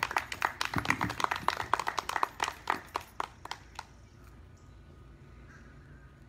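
A small crowd clapping, thinning out and stopping about four seconds in.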